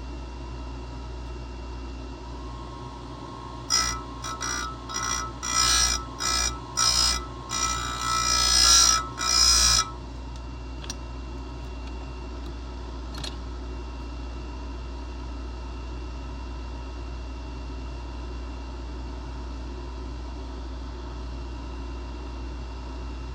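Grinder touching a saw-chain cutter in a run of about eight short grinding passes, starting about four seconds in and lasting some six seconds, to take off a burr on top of the cutter. A steady low hum runs underneath.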